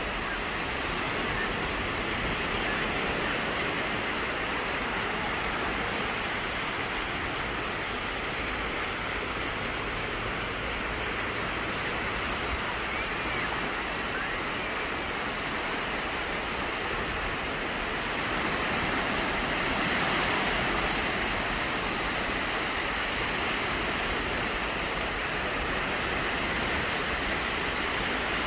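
Small waves breaking and washing up a sandy beach: a steady hiss of surf that swells a little about two-thirds of the way through.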